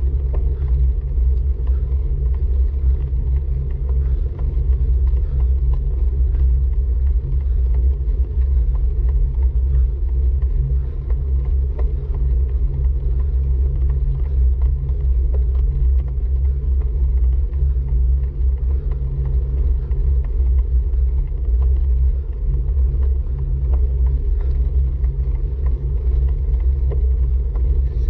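Steady, loud low rumble of wind buffeting a bike-mounted camera's microphone while riding a road bike.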